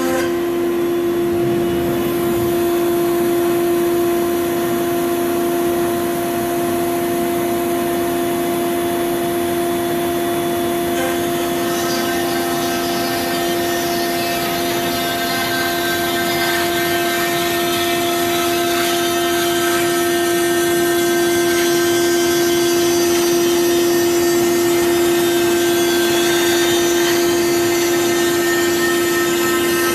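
CNC router spindle milling carbon fiber: a steady, high-pitched whine with a rough cutting hiss over it, the hiss growing fuller about twelve seconds in.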